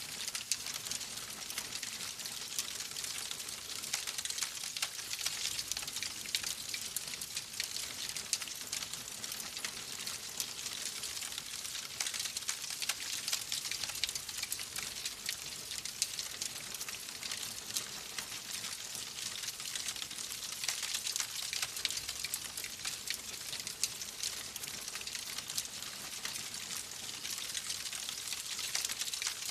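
Wood fire crackling in a fireplace: a steady run of many small pops and snaps over a soft hiss.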